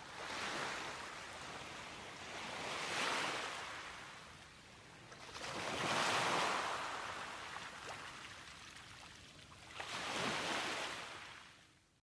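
Small sea waves washing in, a hissing rush that swells and fades about four times, a few seconds apart.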